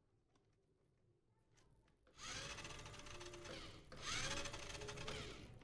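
Toy remote-control car's small electric motor and gears whirring in two runs, starting about two seconds in, with a brief break just before the four-second mark.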